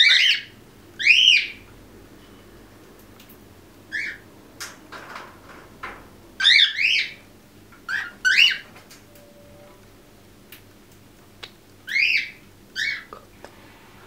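Quaker parrots (monk parakeets) chirping: about nine short, sharp calls, each rising then falling in pitch, some single and some in quick pairs, with a few faint clicks between.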